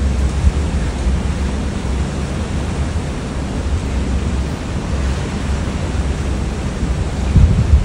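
Wind buffeting the microphone as a steady, uneven rumble, with the wash of the open sea beneath it, gusting louder near the end.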